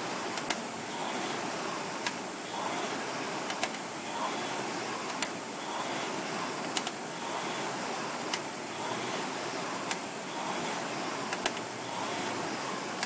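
Concept2 rowing machine's air-resistance flywheel whirring, swelling with each drive stroke about every second and a half, with a sharp click at about each stroke.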